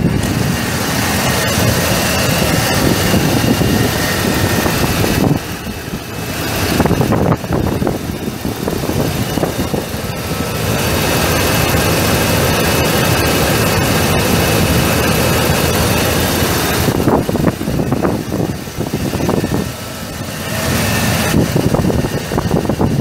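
1997 Ford F250's 7.5-liter gas V8 engine running, its sound growing louder and softer by turns, with brief dips about five seconds in and again toward the end.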